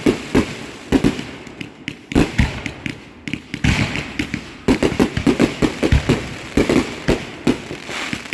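Fireworks or firecrackers going off: a rapid, irregular string of sharp bangs and pops, several a second, thinning briefly near the middle and then coming thick again in the second half.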